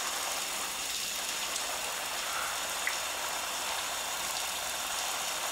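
Shower running: water spraying steadily from a showerhead and splashing onto a person.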